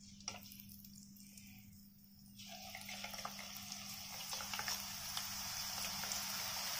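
Drops of gram-flour boondi batter falling through a perforated skimmer spoon into hot oil and frying: a light tap just after the start, then from about two seconds in a sizzle full of small crackles that grows louder and denser as more batter falls.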